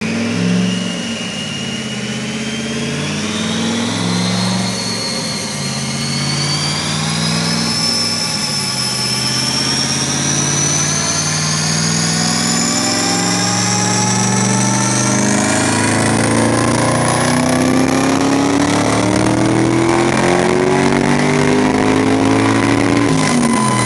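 Twin-turbocharged Ford Mustang engine running under load on a chassis dyno, its rear tyres spinning the rollers, loud enough that onlookers cover their ears. Engine speed builds slowly and steadily, with a high whine climbing in pitch throughout.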